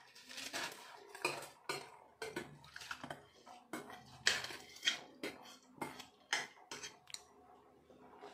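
Steel spoon scraping and clinking against a steel bowl as soaked rice is tipped out into a steel pot of water, a series of short, sharp metallic clinks.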